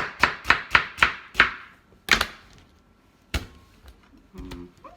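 A sharp kitchen knife chopping fresh pineapple into chunks on a cutting board. A quick run of chops, about four a second, comes first, then two single chops.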